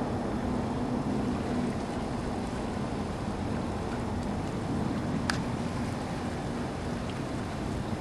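Steady low engine hum from a distant motor, over wind and water noise at a seawall, easing a little partway through. One sharp click about five seconds in.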